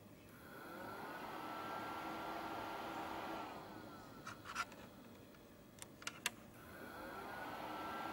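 A small electric motor spins up, runs steadily for about three seconds and winds down, then after a few sharp clicks spins up again.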